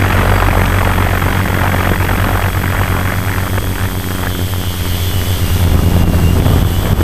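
Electric motors and propellers of a Tarot 650 quadcopter droning steadily in flight, heard from the GoPro mounted on its frame. A thin high whine comes in about two-thirds of the way through.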